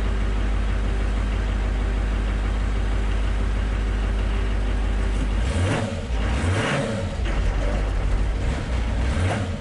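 Duramax 6.6-litre V8 turbo-diesel in a 2004 Chevrolet/GMC C4500 medium-duty truck idling steadily, heard from inside the cab. In the second half the engine is revved, rising and falling a few times, and it sounds healthy: the owner says it runs really good.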